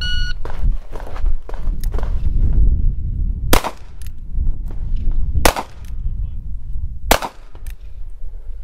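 A shot-timer beep at the very start, then three sharp cracks from a North American Arms .22 Magnum mini-revolver, about two seconds apart, each ringing off briefly. Fainter cracks come in the first two seconds.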